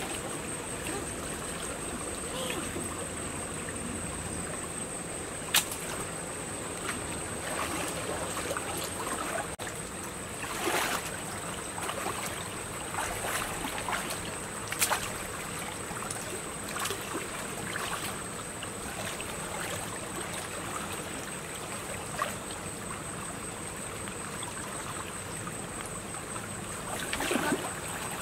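Shallow stream water moving and splashing around legs wading through it, with short sharp splashes now and then and a bigger splash near the end. A steady high-pitched whine runs underneath throughout.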